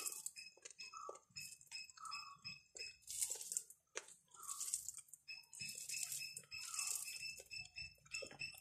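Rice and dal being eaten by hand: wet, squishy mixing and chewing sounds in short irregular bursts, one or two a second.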